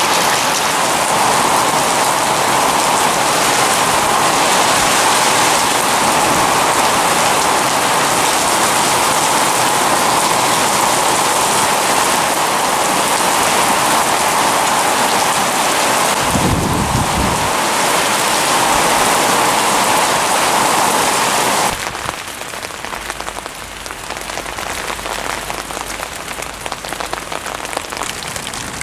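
Heavy downpour of a sudden rain shower, a loud steady hiss of rain striking standing water and ground. A brief low rumble comes a little past halfway. About three-quarters of the way through, the rain drops suddenly to a lighter, quieter patter.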